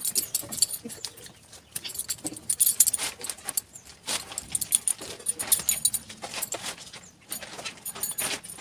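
Bath water splashing in a tub as a small child is washed by hand: an irregular patter of small splashes and drips.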